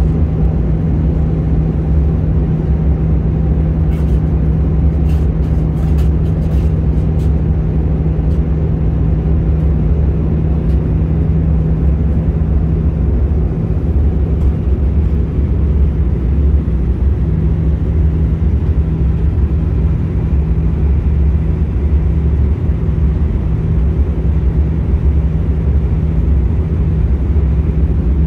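Cabin noise inside an Airbus A319 in descent: the steady low rumble of airflow and the wing-mounted jet engine heard through the fuselage, with a steady low hum. A few faint clicks about four to seven seconds in.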